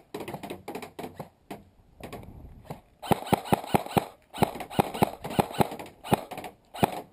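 Airsoft rifle firing rapid single shots: sharp clacks about five a second in two strings over the second half, with scattered lighter clicks in the first second and a half.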